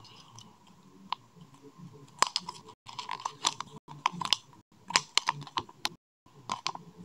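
Thin folded paper leaflet from a Kinder Surprise egg being unfolded by hand: a run of small crackles and clicks, sparse at first and coming in quick clusters from about two seconds in.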